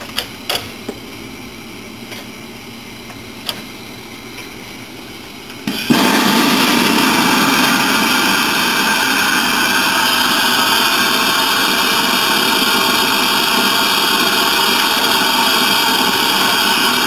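A few light knocks, then about six seconds in a loud, steady hiss of steam from an 1860s hat-blocking machine, steaming the felt hat held in its fingers.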